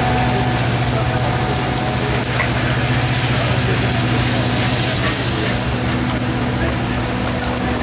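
Steady rain falling, over the low, even drone and rolling rumble of a CSX freight train's coal hopper cars passing a grade crossing.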